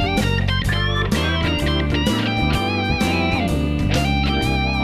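Background music led by electric guitar, with held, wavering lead notes over bass and a steady drum beat.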